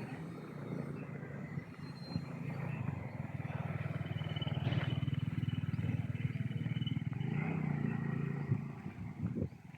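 A motor vehicle's engine running with a steady low hum that grows louder about three seconds in, holds, then fades near the end.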